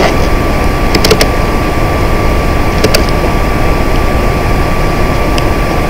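Computer mouse clicking: a quick double-click about a second in, then single clicks near three and five and a half seconds, over a steady background hiss and hum with a faint constant tone.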